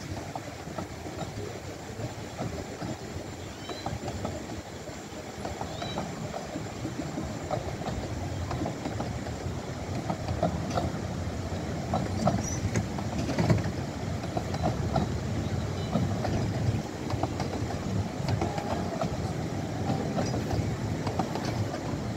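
Carriages of a 15-inch-gauge miniature steam railway train rolling over a bridge: a steady rumble of wheels on rails with scattered clicks and knocks, growing louder as the coaches pass close by.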